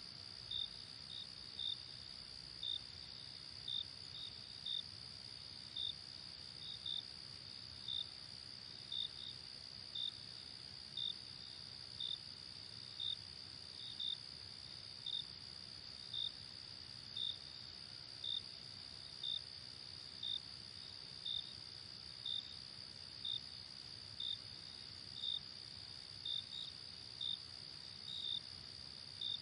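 Crickets chirping: a steady high trill runs beneath a louder, clear chirp that repeats about once a second.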